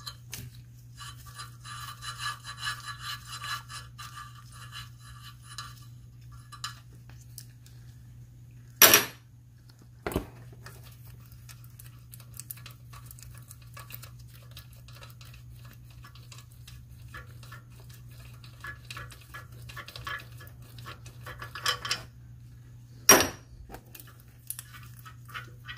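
Socket ratchet clicking in runs as nuts on the front catalytic converter at the exhaust manifold are loosened, with a few sharp metallic clinks of the tool against the metal.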